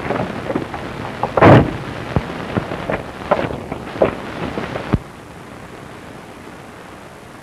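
Crackle and pops of a worn, damaged old film soundtrack, with one loud burst about a second and a half in. About five seconds in it drops to a steady hiss.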